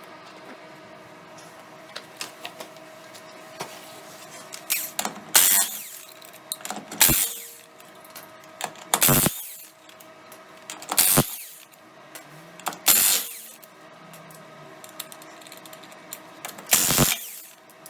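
Impact wrench run in short bursts, about six times, taking the lug nuts off a truck wheel, with a steady hum underneath.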